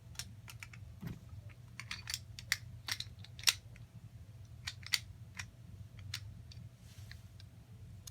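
Irregular small sharp clicks and taps of hard plastic being handled, the sound of a Beyblade spinning top and its packaging being unboxed. The clicks bunch up and are loudest in the middle.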